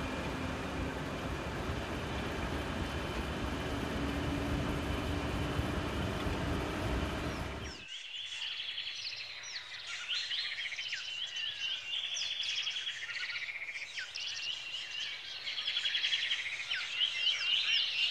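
A steady rushing noise that cuts off sharply about eight seconds in. After it comes a busy chorus of several birds chirping, with quick trills and short sliding whistles.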